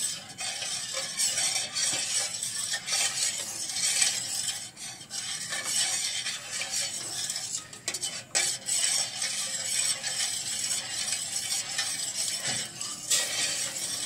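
Metal spoon stirring a thin liquid mixture of coconut milk and melted margarine in a stainless steel pot, scraping and clinking steadily against the sides and bottom.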